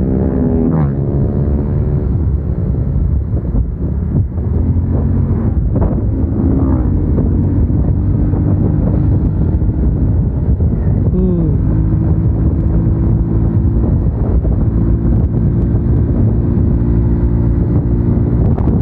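Motorcycle engine running under way, with wind buffeting the helmet microphone; the engine note drops near the start and again about eleven seconds in as the revs fall, then holds steady.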